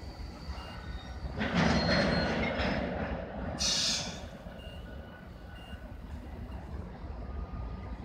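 Freight train pulling out: an EF65 electric locomotive starting a train of tank cars. A loud burst of noise comes about a second and a half in and lasts about two seconds, then a short sharp hiss of air.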